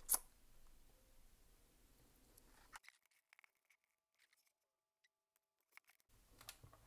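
One sharp click just at the start from the plastic housing of a partly disassembled Nespresso Vertuo coffee machine being handled, then near silence broken by a few faint small clicks.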